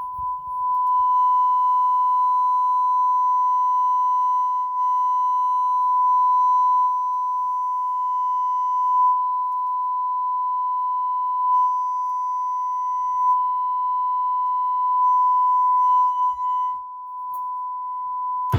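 A steady 1 kHz test tone played through a Luxman LV-103u amplifier during its post-repair testing, with faint higher overtones above it. It begins about half a second in and holds at an even level until it cuts off suddenly.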